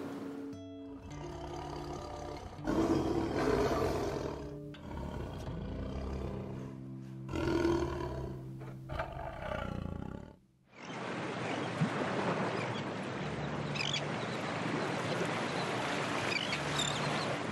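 A tiger growls and roars twice over background music. After a short break comes a steady rushing noise, with gulls calling a few times.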